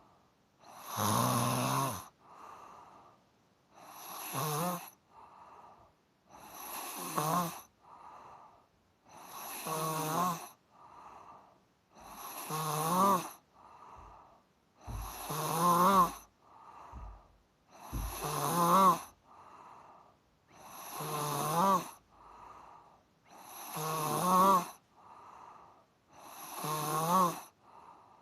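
A person snoring in a steady rhythm, a loud rasping snore about every three seconds, each followed by a softer breath.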